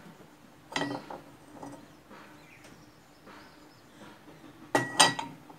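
A few sharp clinks of metal kitchenware being handled, one a little under a second in and a louder pair near the end, some with a brief metallic ring.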